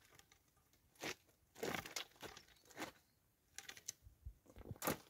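Faint, irregular crunches and rustles of a person's footsteps and movement on a wet gravel track, with a closer cluster of them near the end.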